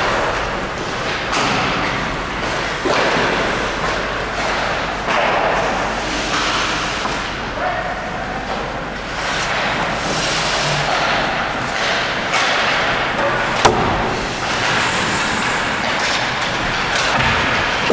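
Hockey play: repeated thuds and knocks of impacts over a steady noisy background, with one sharp crack about three-quarters of the way through.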